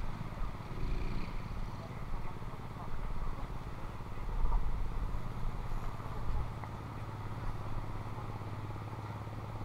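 A steady low engine hum, with uneven low rumbles of wind on the microphone.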